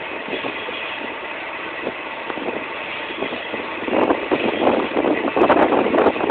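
Lathe running with a steady mechanical noise that turns louder and rougher about four seconds in.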